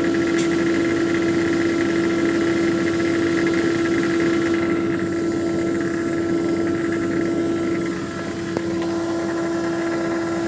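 An electric motor of a workshop machine running with a steady hum, with one sharp click about eight and a half seconds in.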